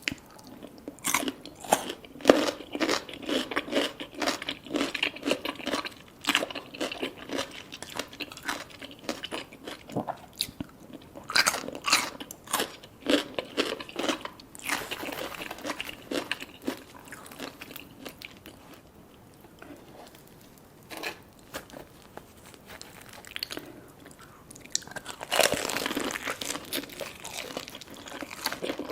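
Close-miked crunching bites and chewing of crispy fried food, with many sharp crackles. It goes quieter for a few seconds past the middle, then a loud run of crunching comes near the end.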